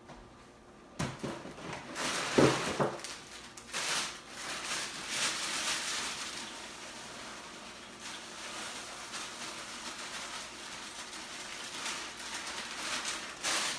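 Plastic inner bag of Special K cereal crinkling and rustling as the flakes are shaken out of it into a blender jar, a steady crackly hiss. A few sharp knocks come near the start.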